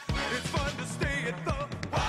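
Upbeat music with a steady beat about twice a second and a wavering melody line over it.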